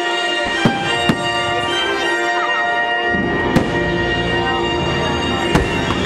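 Fireworks going off in four sharp bangs over loud, sustained show music.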